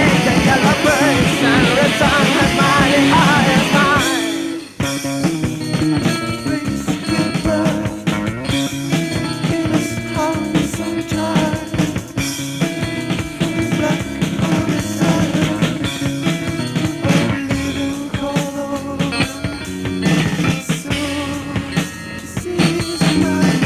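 Rock band music with guitar and drums, in a psychedelic rock style. A dense, wavering passage stops abruptly about four seconds in, and a sparser, steadier section with a driving beat follows.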